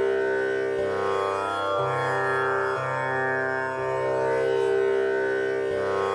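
Instrumental background music: sustained notes over a steady drone, with the low note changing about once a second.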